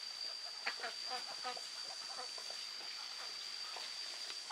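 Chickens clucking in short, repeated calls, busiest in the first second or two, over a steady high-pitched tone.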